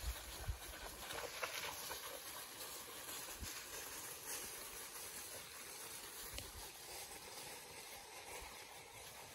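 Footsteps rustling through dry fallen leaves, with a few soft thumps, fading toward the end.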